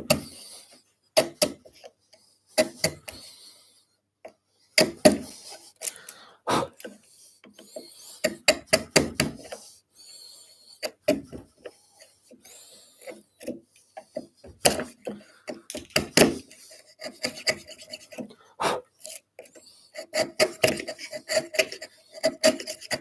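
A small chisel pushed by hand through the waste of a halving joint, shaving off the wood in a series of short, irregular cutting and scraping strokes with brief pauses between them.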